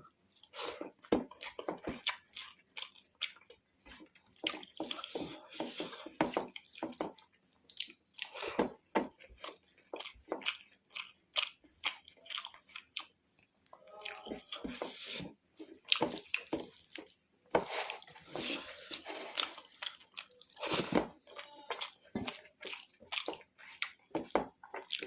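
Close-up eating sounds: wet chewing and smacking, with many small irregular clicks of mouth and food as a rice-and-curry meal is eaten.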